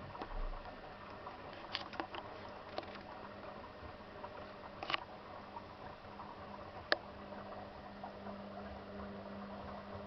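Zanussi FL984CN washing machine washing a load at 35°: the drum turns with a soft wet patter of laundry and water, over a steady motor hum that stops near the end. A few sharp clicks sound in between.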